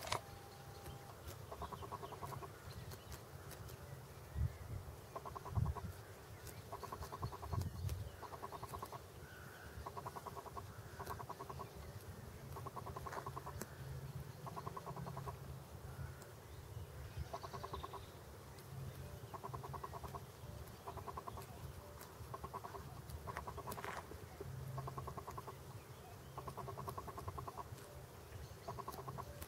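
Greylag goose grazing at close range: short, rapid rattling bursts repeat roughly every second as it works the grass. A few low thumps come in the first several seconds.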